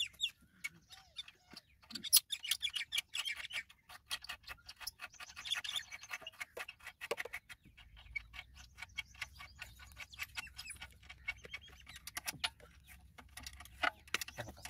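Rapid small metallic clicks and taps as a wrench works the mounting bolts of an electric water-pump motor.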